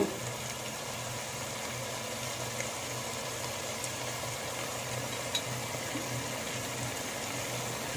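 Vegetables cooking in a pan on a gas stove: a steady low sizzle with a low hum under it.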